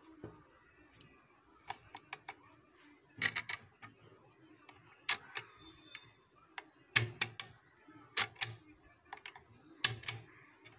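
Handmade crossbow trigger mechanism of aluminium plates being worked by hand, its catch and trigger snapping with sharp metal clicks. The clicks come in small clusters of two to four, every second or so, from about two seconds in.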